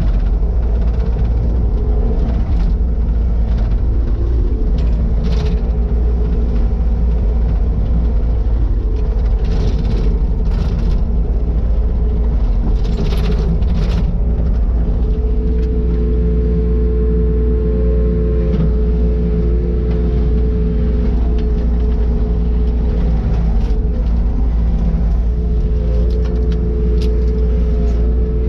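Takeuchi TL150 compact track loader's diesel engine running steadily with a deep rumble, with occasional knocks and clatter. A steady whining tone joins about halfway through.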